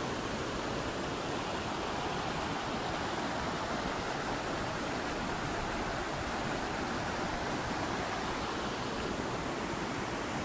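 Mountain river flowing over boulders and small cascades: a steady, even rush of water.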